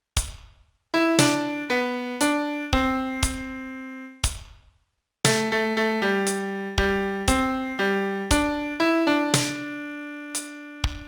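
Solo piano playing a song's vocal melody one note at a time, each note struck and left to fade, with a short pause a little before halfway.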